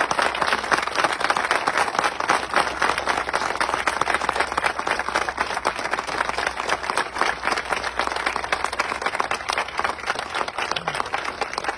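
Crowd applauding, with dense, steady clapping from many hands.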